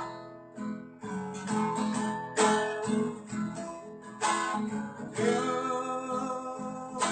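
Acoustic guitar strummed in an instrumental break of a song, a chord struck every second or so and left ringing.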